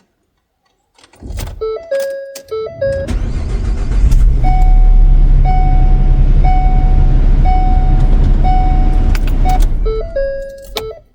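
Ford Transit 350 van started with the key: dashboard chimes, then the engine catches about three seconds in and runs steadily for about six seconds while a warning chime rings about once a second, then it is switched off with more chimes. It starts normally this time despite the van's intermittent no-start fault.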